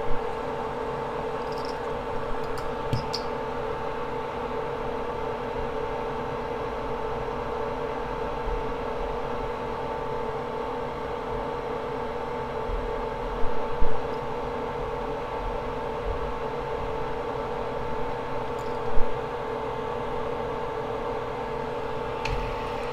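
Steady electric fan hum carrying two steady tones, with a few soft knocks and taps here and there.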